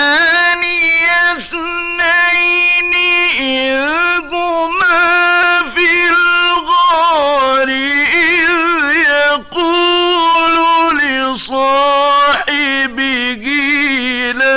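Male Quran reciter chanting in the ornate mujawwad style: long sustained notes with melismatic turns and trills. A few short breaks for breath separate the phrases.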